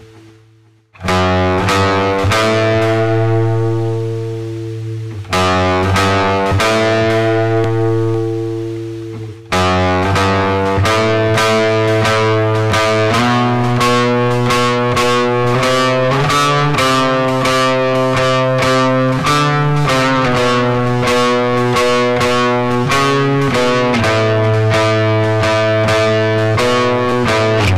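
Guitar-led music. After a brief gap about a second in, two chords are struck and left to ring out and fade. From about ten seconds in a steady passage of rapid, repeated chords takes over.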